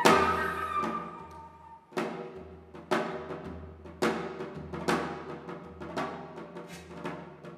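Korean folk-music ensemble playing, with janggu hourglass-drum strikes about once a second, each ringing and fading, over sustained pitched tones.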